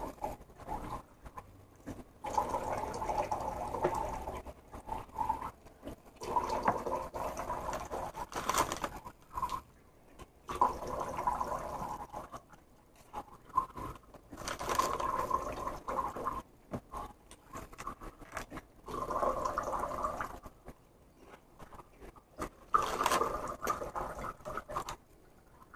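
Eating sounds: a utensil scraping and scooping cottage cheese from a cup, with wet chewing, coming in bouts of a second or two separated by short pauses.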